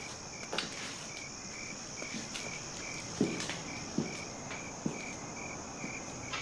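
Night ambience of crickets: a steady high insect trill with a cricket chirping in an even rhythm, a little over two chirps a second. A few short soft knocks sound over it.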